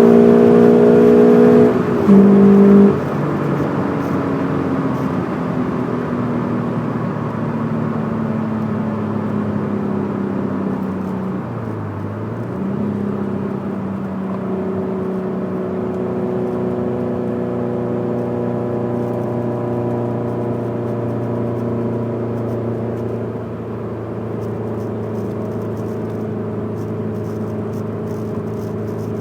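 Scion FR-S's flat-four boxer engine, breathing through unequal-length headers and an aftermarket exhaust, with its boxer rumble. It runs at high revs at first, drops with a short blip about two seconds in, then sinks slowly in pitch for several seconds, dips once near midway, and settles to a steady low drone.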